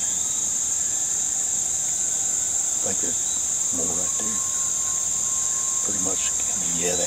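Steady, high-pitched chorus of insects, with a group of coyotes howling faintly far off in the woods beneath it.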